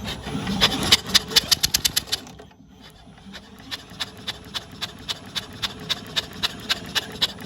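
Briggs & Stratton Model Y engine turned over by hand with its spark plug out, giving a run of sharp snapping clicks: the plug sparking each turn of the magneto during a spark test. The clicks come about six a second, pause about two and a half seconds in, then go on at about four a second.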